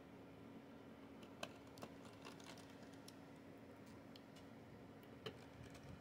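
Near silence broken by a few faint, scattered clicks and taps: a small screwdriver and a replacement laptop GPU fan being seated and screwed into place.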